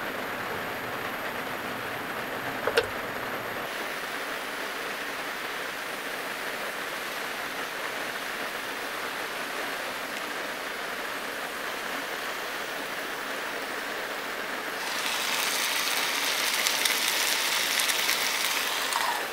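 Steady hiss of heavy rain on a small car's roof and body. A single light knock comes about three seconds in, and about fifteen seconds in a louder, brighter hiss joins as the lid comes off a pan of steamed shumai.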